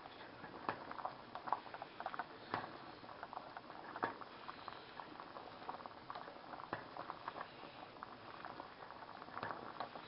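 Pasta water boiling in a saucepan, a steady bubbling hiss with irregular popping and a few sharper clicks.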